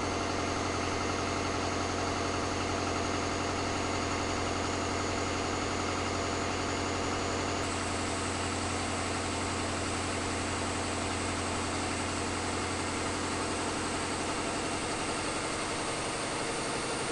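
Caterpillar 3516B V16 diesel engine running steadily on an engine dyno. A high whine steps up slightly in pitch about eight seconds in.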